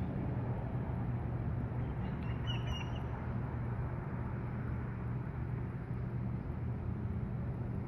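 Steady low background hum with one short bird call about two and a half seconds in.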